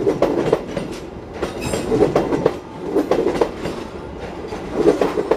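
Passenger train carriages rolling past, their wheels clacking over rail joints in repeated clusters of knocks, a cluster every second or so.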